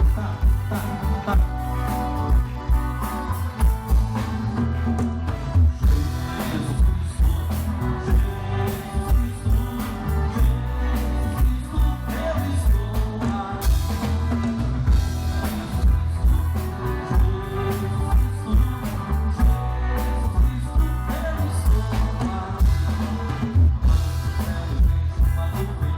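Live band music with a steady, driving drum beat and heavy bass, with a voice singing.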